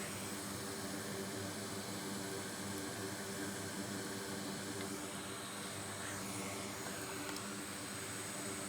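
Steady low electrical hum with an even hiss, unchanging throughout: background noise of the room and bench equipment.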